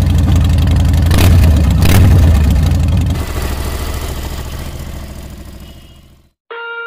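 Harley-Davidson motorcycle's V-twin engine running loud with a deep rumble, swelling twice as the throttle is blipped, then fading out. Music begins near the end.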